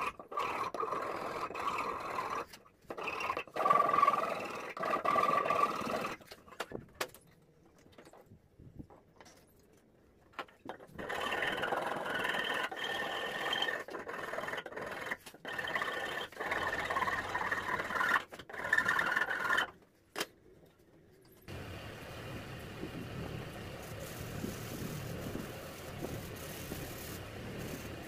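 Flat steel hand file rasping over the end of a wooden handle in repeated strokes, with a quiet pause in the middle. Near the end it gives way to a softer, steadier rubbing of hand sanding.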